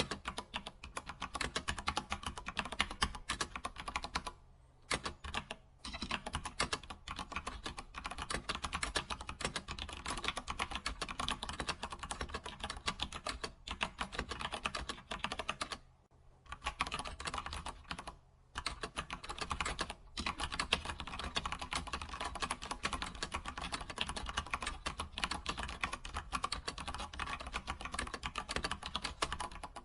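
Computer keyboard being typed on: fast, continuous key clicks with a few brief pauses between runs of typing.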